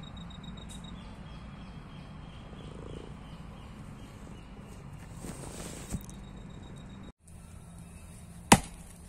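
An axe striking a sawn log round once, a single sharp chop near the end, after a stretch of steady low hum.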